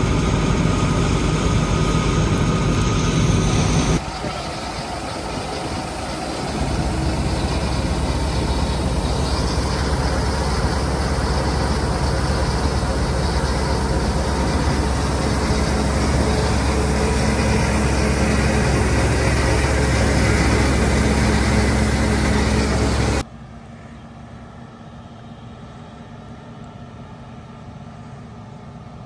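Massey Ferguson 860 combine harvester running steadily while working. About four seconds in the sound dips, then builds to a strong steady low hum as the combine runs with its unloading auger discharging grain. About 23 seconds in it cuts off abruptly to a much quieter steady background.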